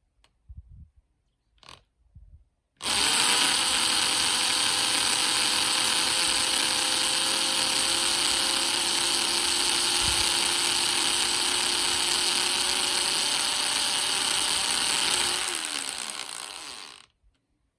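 Electric power tool running at a steady speed: it starts abruptly about three seconds in after a few small knocks, holds an even pitch, then winds down and stops near the end.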